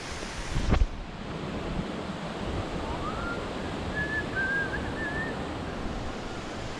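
Steady rushing water of a waterfall, with a sharp thump just under a second in. A few short, thin whistled notes come through in the middle.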